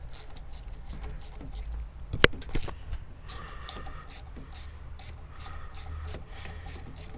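Ratchet wrench clicking in quick runs of short clicks as a bolt on the engine mount is turned loose, with one louder click about two seconds in.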